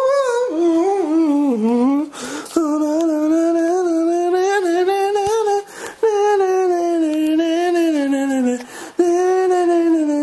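A person singing wordless long held notes with a wavering pitch, pausing briefly for breath about every three seconds.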